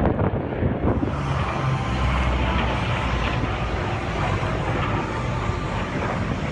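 Aircraft engine noise mixed with wind on the microphone, changing abruptly about a second in to a steadier, hissier noise with a low rumble.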